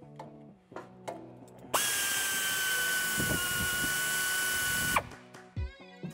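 A 1/4-inch air ratchet runs for about three seconds with a steady whine over a hiss of air, then cuts off suddenly, spinning out an 8 mm bolt that holds the front driveshaft's flange to the transfer case.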